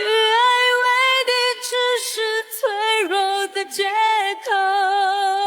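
A woman singing a slow, wordless-sounding melody, mostly alone, in long held notes with a wavering vibrato and short breaks between phrases.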